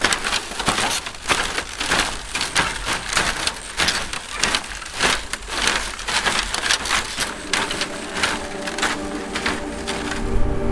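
Footsteps in flip-flops on a woven bamboo-slat bridge: the thin dry bamboo strips creak and crackle in a dense, irregular run of sharp clicks under each step.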